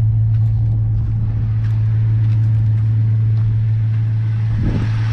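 Holden VY Commodore SS's high-mileage LS1 V8 idling steadily, heard through its twin-tip exhaust as one even low hum. At about 400,000 km it runs smoothly.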